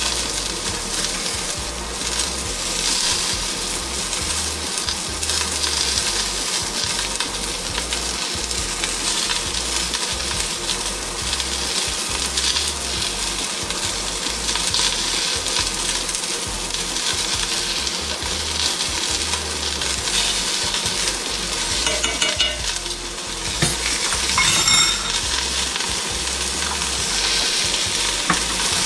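Sliced onions sizzling steadily as they sauté in a hot stainless steel pot. A few metal clinks of a spoon ring out near the end.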